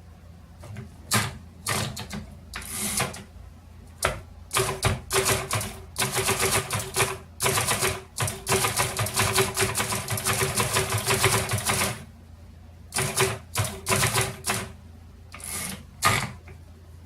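1937 Underwood Noiseless Portable typewriter being typed on. A few single keystrokes come first, then a quick continuous run of typing from about five to twelve seconds in, then a few more short groups of strokes.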